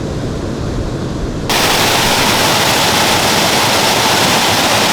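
Steady rush of flowing water with a low wind rumble on the microphone. About a second and a half in it jumps abruptly to a louder, hissier rush, as at a cut to a closer spot.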